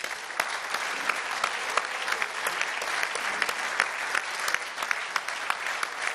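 Audience applauding: a steady wash of many hands clapping, with sharper single claps standing out.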